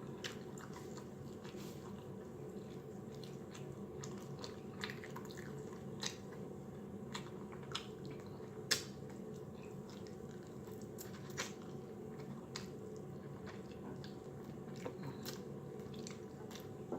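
Close-miked eating: a person chewing and lip-smacking, with short wet clicks scattered through and one louder smack about nine seconds in, over a steady low hum.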